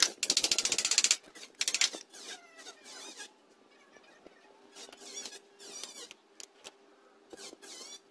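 A steel knife blade scraping and whittling bamboo strips. A loud dense rasp in the first second, then several shorter, squeaky scraping strokes.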